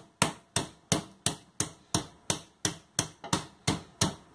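Meat hammer pounding a chicken breast in a plastic food bag on a wooden chopping board to flatten it: a steady run of sharp thuds, about three a second.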